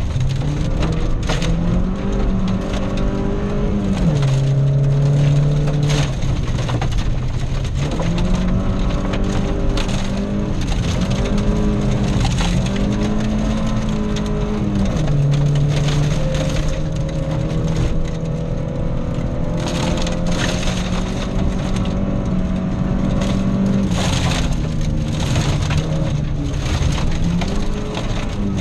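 Volvo rally car at full effort on a gravel stage, heard from inside the cabin: the engine climbs in pitch through each gear and drops back at the gear changes, about a few seconds apart, while loose gravel cracks and rattles against the underbody and wheel arches.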